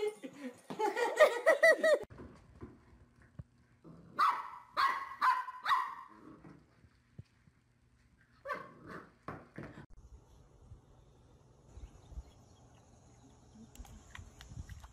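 A dog barking: a quick run of about four sharp barks a few seconds in, then two more a few seconds later. Before them, about a second in, there is a loud wavering cry lasting about a second, the loudest sound here.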